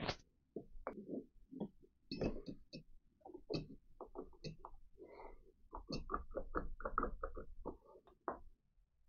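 Metal parts of a milling-machine spindle assembly being handled and fitted by hand: scattered light clicks, clinks and knocks, with a quicker run of taps about two-thirds of the way through.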